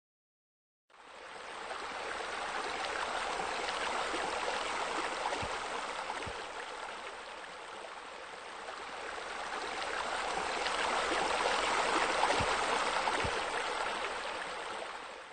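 Running water splashing steadily, like a pool's water feature. It starts about a second in, swells twice and cuts off at the end.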